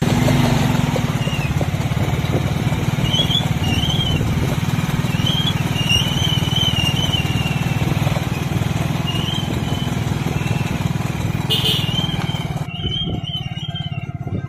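Small motorbike engine running steadily while riding along, heard from on the bike, with short high chirps over it.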